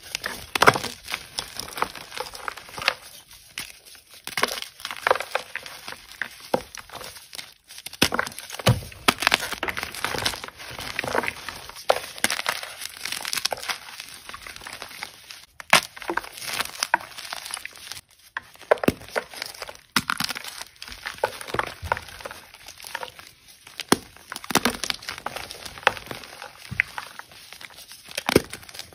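Blocks of dyed gym chalk crushed and crumbled between the fingers: irregular crisp cracks and crunches over a soft, powdery crumbling.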